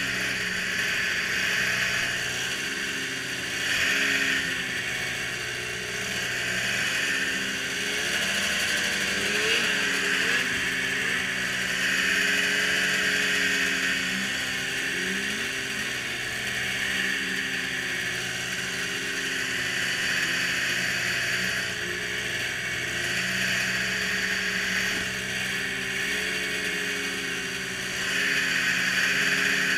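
Snowmobile engines idling at the start line, one holding a steady note while others waver up and down in revs.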